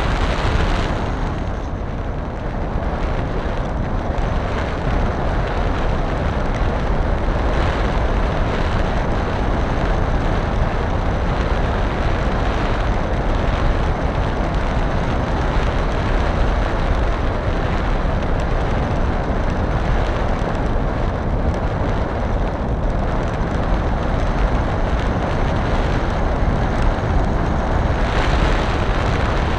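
Steady, rushing wind buffeting on the onboard camera microphone of a model aircraft in flight, a low rumbling noise with no breaks.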